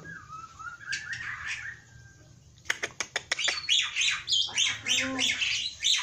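Caged black-winged starling (jalak putih) singing: a soft whistled phrase, a short lull, then from about halfway in a burst of rapid sharp clicks and loud, harsh chattering notes.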